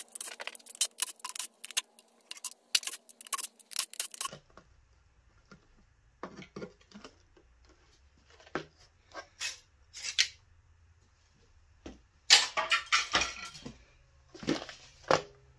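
Sharp metallic clicks and clatter of bolts and hand tools being handled while the valve covers are unbolted from a VQ35DE V6 engine. The clicks come thick and fast for the first few seconds, then scattered, with two short bursts of clatter near the end.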